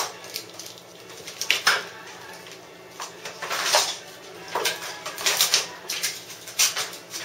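Faux stainless-steel adhesive vinyl film and its paper backing crinkling and rustling in irregular bursts as they are handled and pulled around the edge of a refrigerator door.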